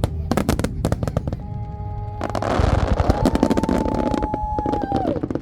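Aerial fireworks shells bursting in rapid succession, sharp bangs that swell into a dense crackle about two seconds in, with a held tone running over the bursts and dropping away near the end.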